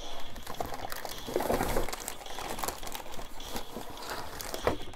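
Plastic bag crinkling and cardboard scraping as a bagged toy is pulled out of its cardboard box: a continuous rustle with many small crackles.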